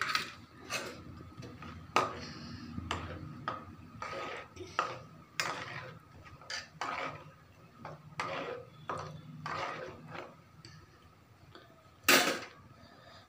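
Wooden spatula stirring a thick curry gravy in a metal kadai, knocking and scraping against the pan about twice a second, with one louder knock near the end.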